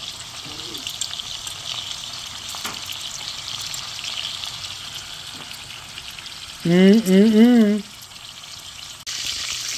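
Thick-cut bacon wrapped around steak strips sizzling steadily in hot fat in a cast iron skillet, with a few light clicks of metal tongs turning the pieces.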